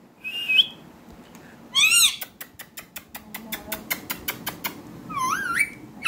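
Indian ringneck parakeet calling: a short chirp, then a loud arched squawk, and near the end a wavering, rising warble. Between them comes a quick run of sharp clicks, about five a second, for a couple of seconds.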